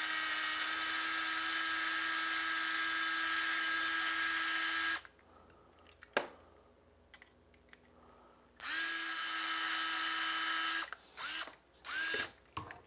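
Proxxon electric screwdriver, used as a slow drill, running steadily at one even pitch as it drills out the rivet of a die-cast toy car. It stops about five seconds in, a sharp click follows, then it runs again for about two seconds, with a few short spurts near the end.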